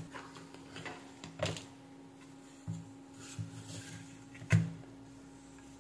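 A few irregular knocks and light clatter as a switch-mode power supply circuit board is handled, turned over and set down on a wooden workbench; the loudest knock comes about four and a half seconds in.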